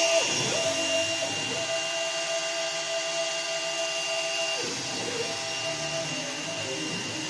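Stepper motors of a small steel-framed CNC router driving its axes, a steady whine whose pitch dips and climbs back quickly several times as the axes slow, reverse and speed up again, over a steady high tone and hiss.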